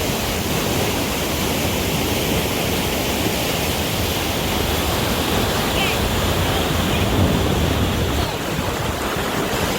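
Flood-swollen creek rushing past in a steady roar of water, with wind rumbling on the microphone.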